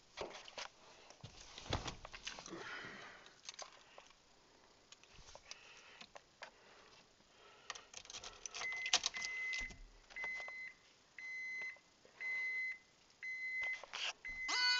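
Keys jangling and clattering, then the Mazda 626's warning chime beeping about once a second, several times in a row.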